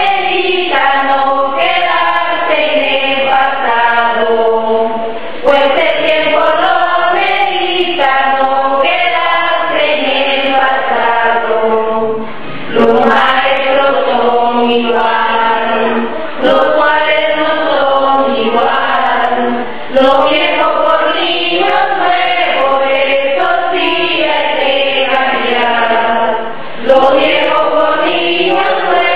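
A choir singing, in phrases broken by brief pauses every few seconds.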